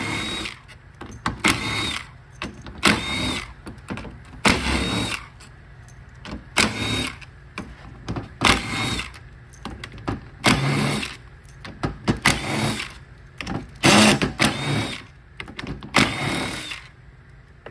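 Cordless power driver with a socket spinning out the small bolts that hold the two halves of a Toyota AB60 transmission valve body together. It runs in about ten short bursts of a second or so, one bolt after another, the motor whine rising and falling with each.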